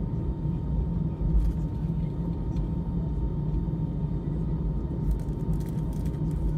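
Inside the cabin of an Airbus A319 airliner: the steady low rumble of the engines and airframe, with a faint steady whine over it and a few light rattles near the end.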